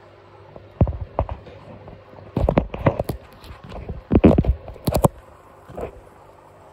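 Handling noise from a phone camera held against an aquarium: irregular knocks and rubs, in short clusters, over a faint steady hum.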